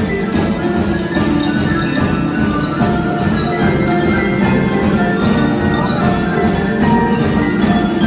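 Mallet percussion ensemble of marimbas and xylophone playing an arrangement of a film-score suite, many short ringing notes over a continuous lower part.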